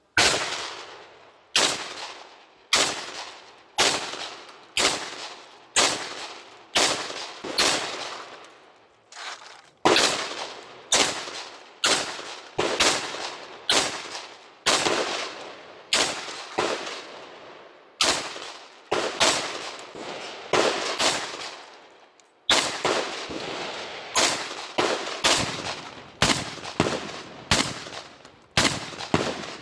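SKO Shorty semi-automatic shotgun fired in rapid strings of shots, roughly one to two a second, each shot trailing off in a short echo. There are brief pauses about a third and three-quarters of the way through.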